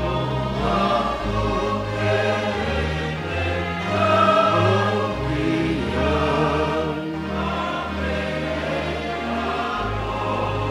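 Church congregation singing a hymn in Tongan in several parts, with low bass notes held underneath and changing every second or two.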